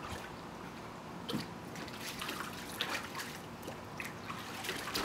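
Husky puppy splashing and pawing at the water in a shallow plastic kiddie pool: irregular splashes and drips over a steady water hiss.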